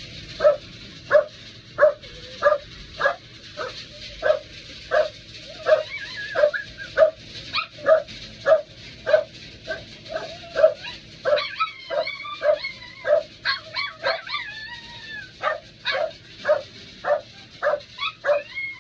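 A dog barking over and over at a steady pace, about one and a half barks a second, with high whining and yips mixed in for a few seconds around the middle. The dog is upset by the noise of a storm.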